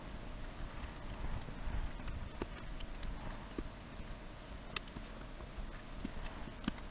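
Faint scraping with a few short, sharp clicks and taps of a small tool against the radio's plastic case, over a low steady hum. The tool is cleaning away the remains of the old plastic-welded rubber power button.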